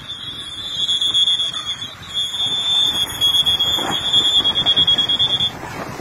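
Lifeguard's pea whistle blown in long, shrill, trilling blasts, with a short break about two seconds in, stopping near the end; a warning to bathers in rough surf.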